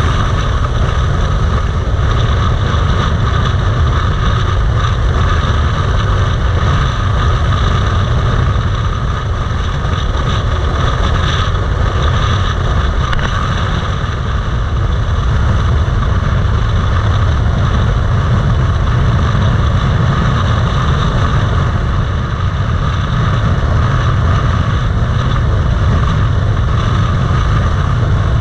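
Yamaha MT-07 parallel-twin engine running steadily at highway cruising speed, heard from the rider's position along with a constant heavy rush of wind and road noise.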